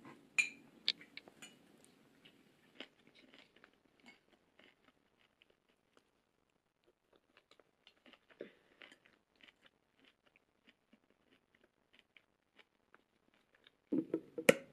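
Close-up eating sounds: quiet chewing and small mouth noises, with light clicks of chopsticks against a ceramic rice bowl and plates. A louder knock or clatter comes near the end.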